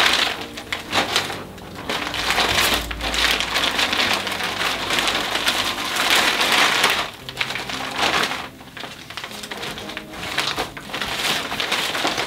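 Stiff gele (head-tie) fabric rustling and crinkling close up as it is wrapped round the head and its ends are pulled together for tying, in a loud continuous rustle that eases off briefly a few times.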